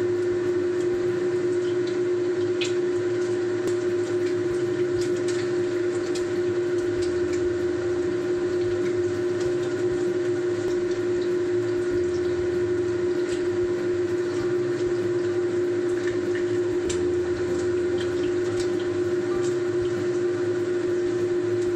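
A steady hum at one constant pitch runs throughout, with eggs frying in sesame oil in a wok and a few sharp clicks of a spatula against the pan.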